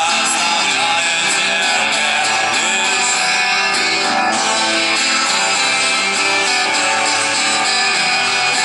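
Background rock music with strummed guitar and a steady, dense mix.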